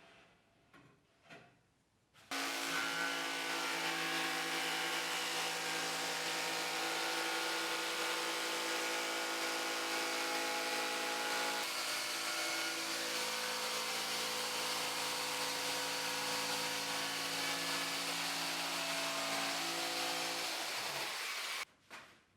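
An electric woodworking power tool starts with a few light knocks before it, runs steadily with a mix of hum and hiss for about twenty seconds, and cuts off abruptly near the end.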